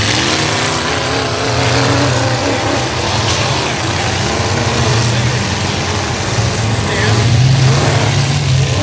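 Engines of several full-size pickup trucks in a demolition derby running and revving together, swelling a little louder near the end.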